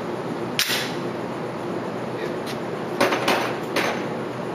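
Gunshots at an indoor shooting range: one sharp shot about half a second in, then three more in quick succession around three seconds in.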